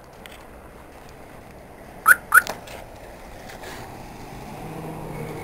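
Two quick, high rising whistle-like chirps about a third of a second apart, then the low hum of street traffic growing louder toward the end.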